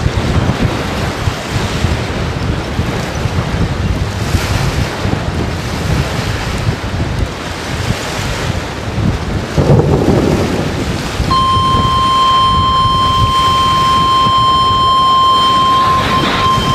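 Strong storm wind gusting and buffeting the microphone. About two-thirds of the way through, a steady electronic tone starts and holds.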